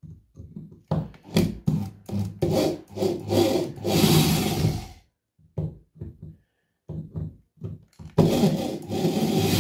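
Cordless drill-driver backing out screws from a door/window security lock, its motor run in a string of short bursts, with longer runs about three seconds in and again near the end.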